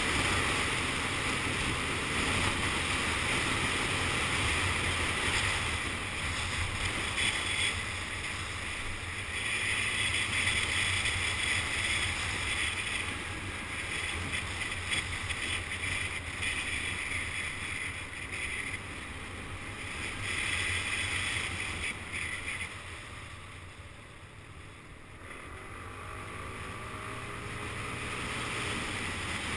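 Motor scooter riding along at road speed: wind rushing and buffeting over the microphone, over the steady hum of the scooter's engine. The wind noise dips for a few seconds shortly before the end, then the engine note rises again.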